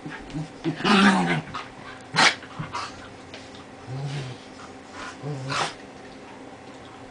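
Two dogs, a golden retriever puppy and a Lhasa Apso, growling at each other in play. There is a loud snarl about a second in, a short sharp bark just after two seconds, and two low growls near four and five seconds.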